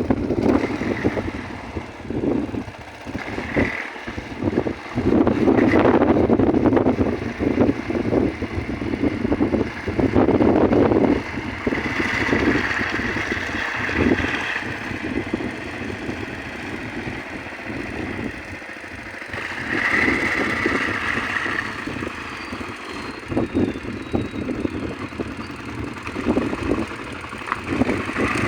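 Small fishing boat's engine running steadily, under irregular louder noisy swells.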